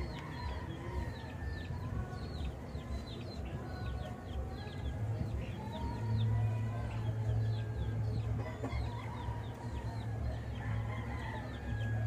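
Chickens clucking and small birds chirping over and over, with a low steady hum that grows louder about six seconds in.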